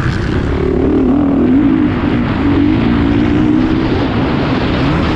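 Motocross bike engine running hard under throttle, heard up close from on the bike. Its note rises and falls as the rider works the throttle through the turns, over a heavy rush of wind and rumble.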